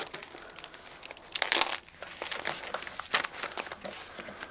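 Foam and plastic packing wrap crinkling and rustling as it is pulled and cut open, with a louder burst of crinkling about one and a half seconds in.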